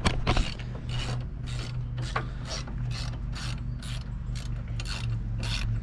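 Hand ratchet clicking in short repeated strokes, about three a second, as a bolt is backed out, with a steady low hum underneath.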